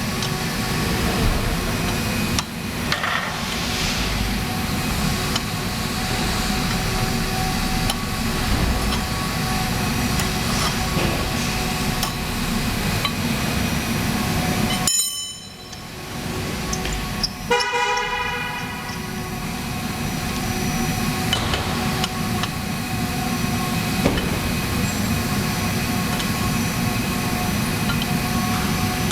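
Steady low traffic-like rumble, with a short horn-like tone that sounds briefly and fades about two-thirds of the way in.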